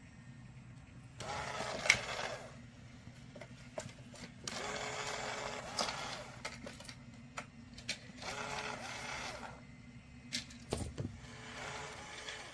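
Small electric motor of an electronic cat toy whirring in repeated bursts of a second or two, about every three and a half seconds, as it drives the spinning feather wand, over a steady low hum. A few sharp plastic clicks come in between.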